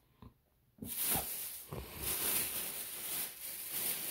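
Rustling, hissing handling noise of a phone being carried across a room, with a few faint knocks, starting about a second in after a moment of near silence.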